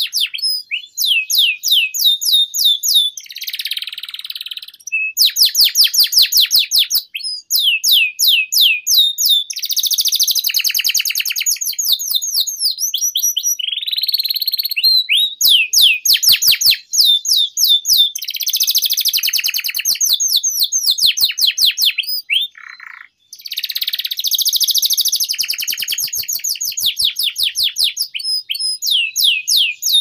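Domestic canary singing a long, continuous song of fast trills: rapidly repeated short falling notes and rolls, with buzzy stretches between them. The song breaks briefly about 7 seconds in and again about 23 seconds in.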